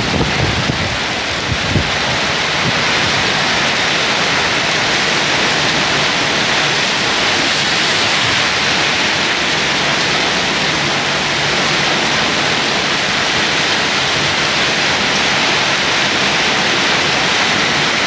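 Heavy rain pouring onto a wet road: a loud, steady hiss.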